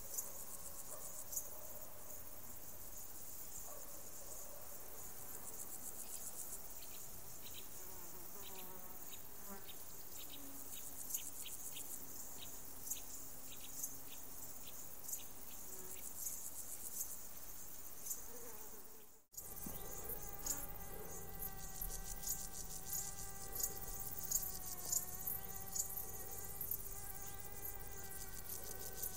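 Crickets and other meadow insects chirring in a dense, high-pitched chorus. For several seconds near the middle, a slower series of ticks, about two a second, joins in. About two-thirds in, the sound drops out for a moment, and then a steady hum of several pitches, dipping slightly once, runs under the insects.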